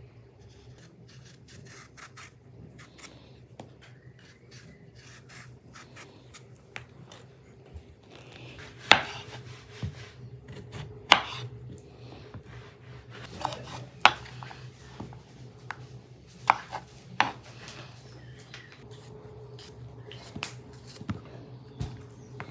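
Kitchen knife cutting cucumbers on a wooden cutting board: irregular sharp knocks of the blade against the board, the loudest few in the middle, with quieter clicks and scraping between them.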